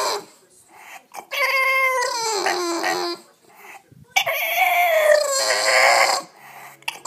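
English Bulldog puppy whining in two long, drawn-out calls, the first sliding down in pitch. It is begging to be let up onto the bed.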